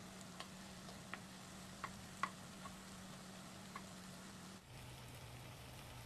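Chicken thigh pieces sizzling gently in a nonstick wok as they are stirred with a wooden spatula, with a few sharp ticks in the first four seconds over a steady low hum.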